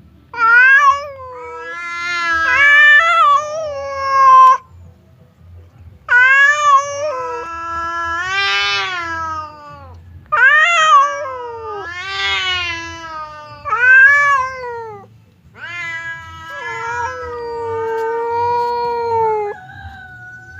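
Domestic cats yowling at each other in about five long, wavering calls with short gaps between them. These are the threat calls of cats squaring up to fight.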